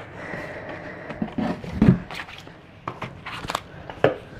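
Small cardboard boxes being set down and slid into rows on a table: a series of light knocks and scrapes, the loudest a thump nearly two seconds in.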